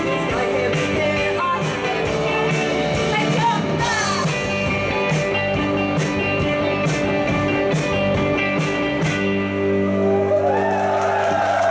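Live indie-pop band finishing a song: a woman singing over guitar and drums with a regular hi-hat beat. About nine seconds in the drums stop and a last chord rings on, and the crowd starts to cheer near the end.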